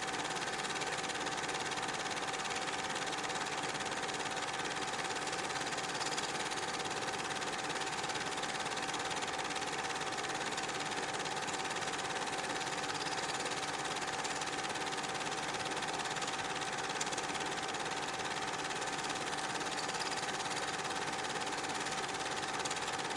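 8mm film projector running: a steady mechanical whir with a constant tone in it and no change in level.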